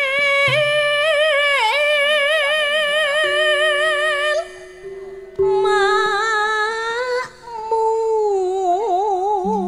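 A woman singing a Javanese campursari langgam, holding long melismatic notes with a wide, even vibrato. She drops out briefly a little under halfway through, then comes back on a lower held note. Steady sustained instrument notes sound underneath.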